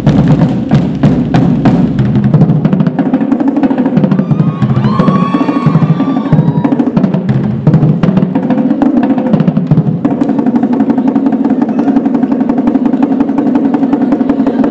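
Marching drumline playing a fast, busy cadence: snare drums, multi-tenor drums and bass drums struck in rapid rolls and unison hits.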